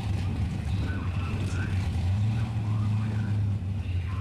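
Car engines idling at a drag strip start line: a deep, steady, uneven rumble that grows a little louder for a second or so just past the middle.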